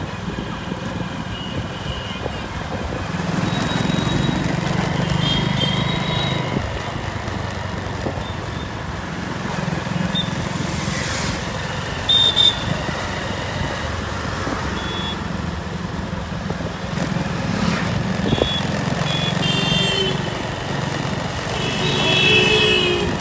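Road traffic with motorcycles and cars running past steadily, and a few short horn toots now and then.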